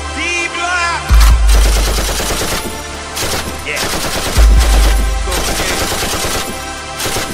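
Rapid machine-gun fire sound effects over a hip-hop beat, with deep bass hits about a second in, about four seconds in, and again at the end. Short gliding tones come before the first bass hit.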